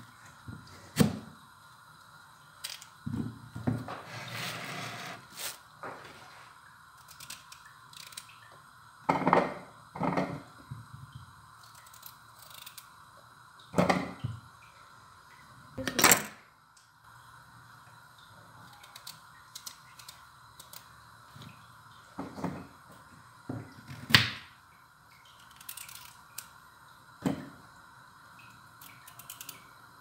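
Scattered sharp knocks of a kitchen knife and vegetables on a wooden cutting board, with cut pieces set down on a plate, about nine knocks in all at uneven intervals. A faint steady hum runs underneath.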